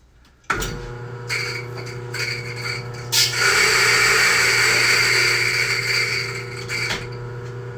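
Electric burr coffee grinder switched on about half a second in, its motor humming steadily; from about three seconds in a louder rough grinding noise rides on top as the beans go through the burrs, easing off near the end while the motor keeps running.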